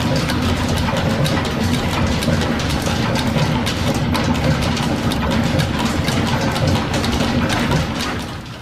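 Horizontal milling machine taking a cut in a clamped metal part: the cutter and belt-driven machinery make a loud, steady clatter of rapid ticks over a low running rumble. The sound dips briefly near the end.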